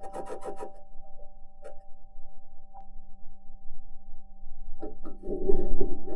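Perseverance Mars rover driving, heard through its onboard microphone: a steady two-note hum with scattered clicks and scrapes. The wheels' clanking and scraping over rock grows loud again from about five seconds in.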